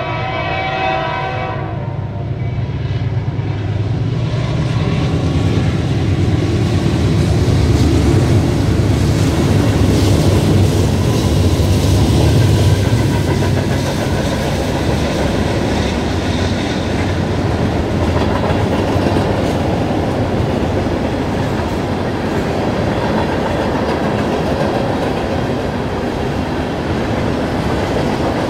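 Freight train passing. A diesel locomotive's horn dies away in the first two seconds, then the deep rumble of the lead diesel locomotives builds and passes, loudest about halfway through. After that comes the steady rumble and clickety-clack of tank and hopper cars rolling by.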